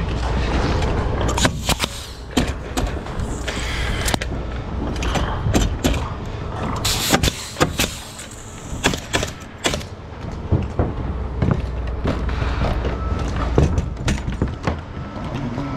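Irregular sharp knocks and clicks of framing lumber being handled and nailed with a pneumatic nailer on a roof, over a steady low rumble.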